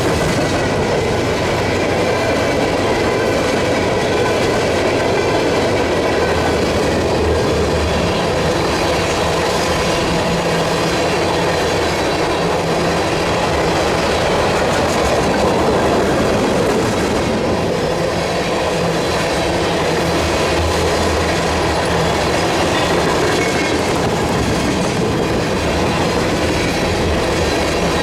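Cars of a long CSX freight train rolling past: a steady rumble of wheels on rail, with clacking over the rail joints.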